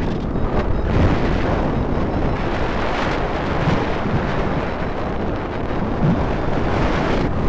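Heavy wind noise on the microphone of a paraglider pilot's camera in flight: a loud, steady rush of air with low buffeting throughout.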